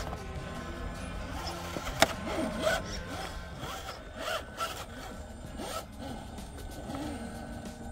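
An RC rock crawler's electric motor whines up and down in pitch with the throttle as the truck climbs over rock, with tyres scraping on stone and a sharp knock about two seconds in.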